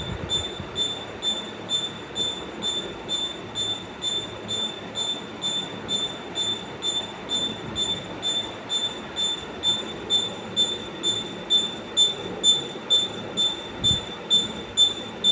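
A high-pitched squeal that pulses evenly a little over twice a second, over a steady hiss, as from something turning and rubbing on each revolution.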